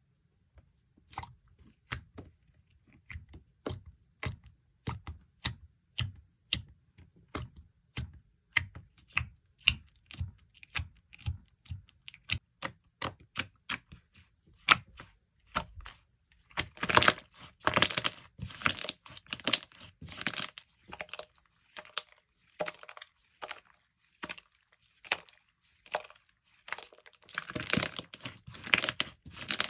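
Chocolate whipped-texture slime being worked by hand, giving a steady run of sharp clicking pops a few per second. About halfway in, and again near the end, the clicks run together into denser crackling bursts.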